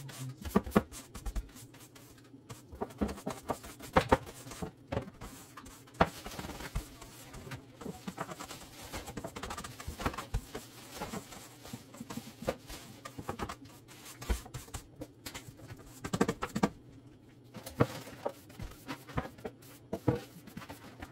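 Hand wiping and scrubbing the inside of a wooden kitchen cabinet: rubbing on the cabinet floor, with irregular knocks and taps against the wood.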